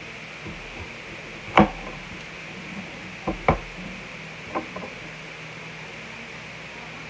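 Chef's knife chopping down onto a cutting board while trimming an onion: a few short, sharp knocks, the loudest about one and a half seconds in and a quick pair about three and a half seconds in, over a steady hiss.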